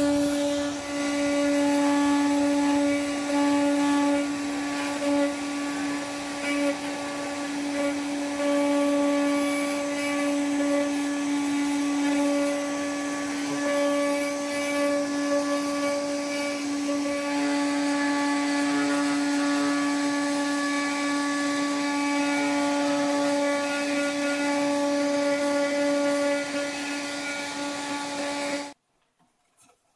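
Two Trees TTC450 hobby CNC router's spindle running with a steady whine while a 30-degree V-bit carves a relief into plywood on the finishing pass, the cutting noise rising and falling a little as the bit moves. The sound cuts off abruptly near the end.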